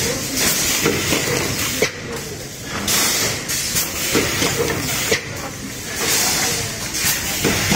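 DB-520A plastic lid thermoforming machine running in its cycle: a hiss of compressed air about every three seconds, with sharp mechanical knocks between and a low machine rumble underneath.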